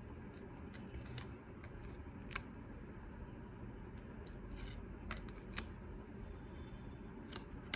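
Tarot cards being handled and turned over one at a time, with a handful of sharp card clicks spaced a second or more apart over a low room hum.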